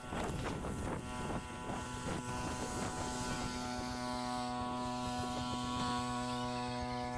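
A steady low hum with many overtones, as from a motor or engine running. Clicks and rustling come in the first two seconds, and the hum holds even after that.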